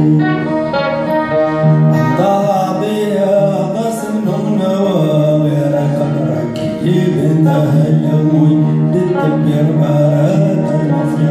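Live Tuareg desert-blues band music: acoustic guitar played with a man singing over a steady, droning accompaniment.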